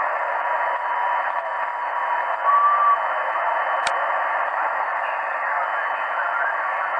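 Hiss and static from an ICOM IC-R75 shortwave receiver on the 20-metre amateur band in single-sideband mode, with no station transmitting. A faint steady heterodyne tone fades out about a second in, a short whistle sounds about two and a half seconds in, and a single sharp click comes near four seconds.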